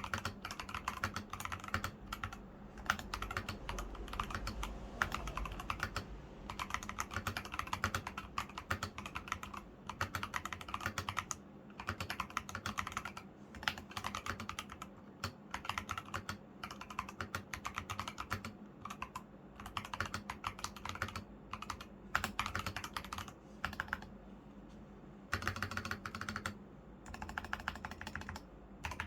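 Typing on an NJ80 mechanical keyboard with stock Fantasy Virus switches, rubber sponge foam inside and lubed stabilizers: a fast, steady stream of key clacks, with a couple of short pauses near the end.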